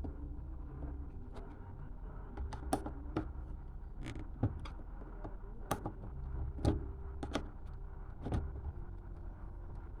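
Irregular clicks and light knocks of parts and tools being handled, about a dozen scattered through, over a low steady background noise.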